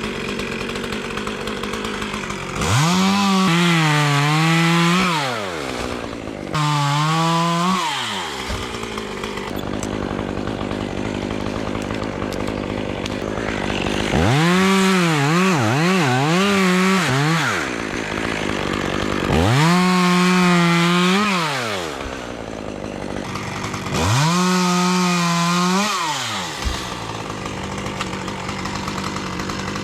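Small two-stroke climbing chainsaw idling between five bursts of full throttle, each lasting two to three seconds, with the pitch sagging under load in the middle of a burst and falling away when it is released. This is the saw cutting through cypress limbs.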